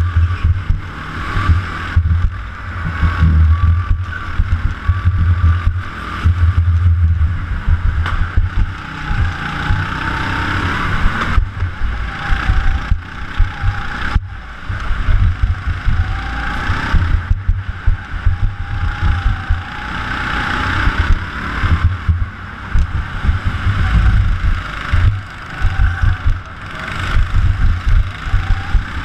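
Go-kart driven at speed around an indoor track, heard from a camera mounted on the kart: a loud, muffled, throbbing rumble that surges and dips, with a thin whine that rises and falls with the kart's speed.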